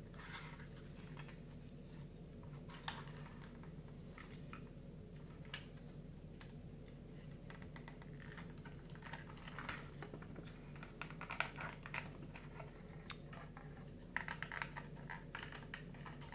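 Faint clicks and light scraping of 3D puzzle pieces being pushed and fitted into place by hand, busier near the middle and toward the end, over a steady low hum.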